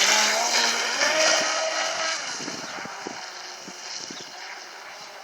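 RC speedboat on a 4-cell battery running fast across the water, its electric motor whining over the hiss of spray. Loud at first, then fading as it pulls away.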